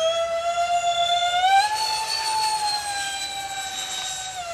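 Electric ducted fans of a Freewing Su-35S R/C jet model whining loudly in flight, the pitch stepping up about a second and a half in as the throttle opens, then easing down and dropping near the end.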